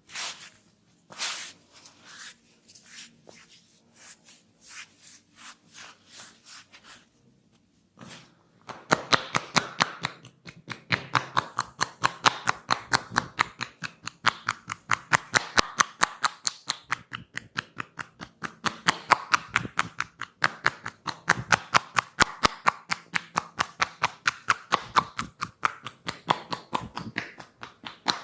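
Massage hand strokes: a few scattered slaps and rubs, then from about nine seconds in a fast, steady run of sharp hand taps and pats, several a second.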